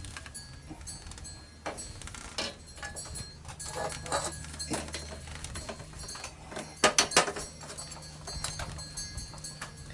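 Scattered metal clinks and knocks as a chrome motorcycle exhaust pipe is worked into place at the engine, with a quick cluster of sharp clacks about seven seconds in. A steady low hum runs underneath.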